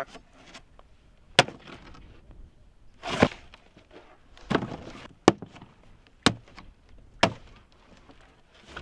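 A large cardboard box being handled: several sharp knocks and thumps of cardboard, with short bursts of rustling and scraping between them as the box is lifted, tipped and stood upright.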